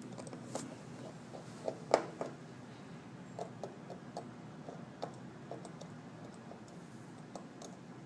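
Small light clicks and ticks of a tiny screwdriver and metal parts as the screws of the iPhone 5's flex-connector shield plate are taken out, with a sharper click about two seconds in.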